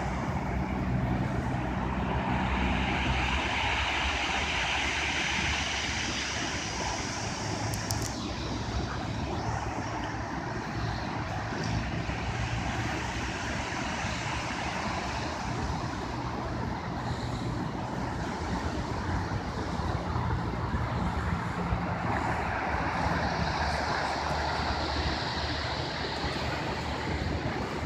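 Sea surf: waves breaking and washing up the shore in a continuous wash that surges louder twice, a few seconds in and again near the end, over a steady low rumble.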